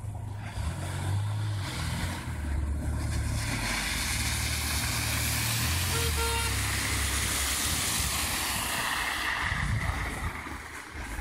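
Mazda 929 drifting on packed snow: its engine revs under throttle, changing pitch in steps, with tyres hissing through the snow. The hiss swells as the car slides past close by. A brief horn toot sounds about six seconds in.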